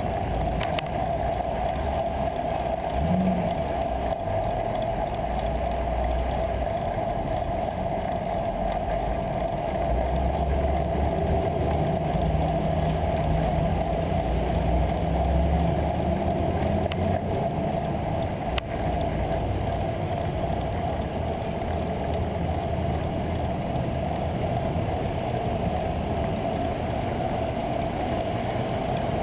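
Steady rush of wind and road rumble picked up by a bicycle-mounted GoPro Hero 2 HD while riding in city traffic, with the low rumble swelling a little midway and a single sharp click about two-thirds of the way in.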